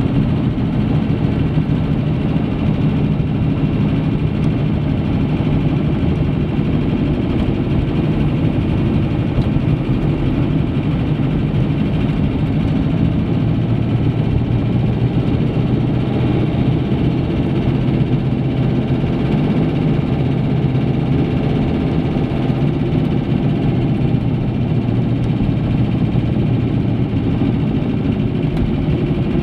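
Car engine and tyre noise heard from inside the cabin while driving: a steady low drone that holds even throughout.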